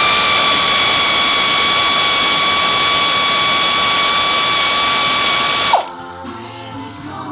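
Air ratchet fitted with an Allen bit, running as a steady high whine on a bolt in a motorcycle engine case, then cutting off suddenly about six seconds in.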